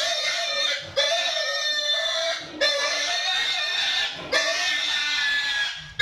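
A pig squealing while held down for castration: four long, high squeals of about a second and a half each, broken by short gasps.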